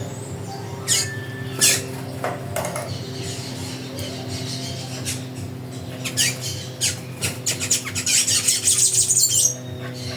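Bird calls: two sharp, loud calls about a second in, scattered calls after, then a fast run of rapid calls near the end. A steady low hum sits underneath.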